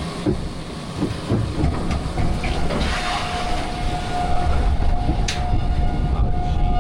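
Ride lift conveyor belt hauling the ride vehicle up the big lift hill: a steady rattling rumble, joined about two seconds in by a steady whine.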